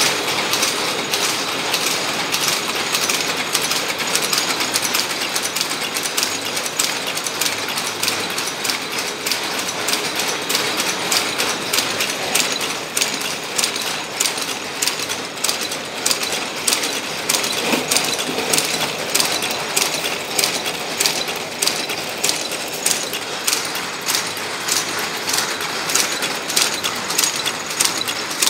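Automatic safety-pin making machine running, its wire-forming mechanism clattering in a steady, rapid rhythm of metal clicks as it bends and coils wire into pins.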